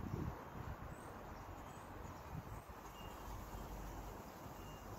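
Quiet outdoor ambience by the water: wind buffeting the microphone with a low rumble, strongest in the first half second, and a couple of faint short high chirps later on.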